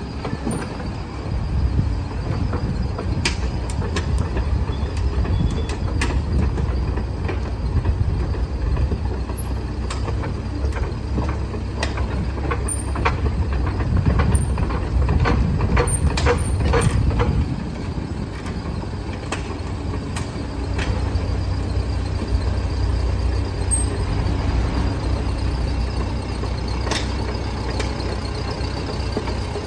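CAT 306CR compact excavator's diesel engine running with a low rumble, with scattered metal clanks and knocks from the machine working. About 18 seconds in, the clanks stop and the engine settles to a steadier, slightly quieter running.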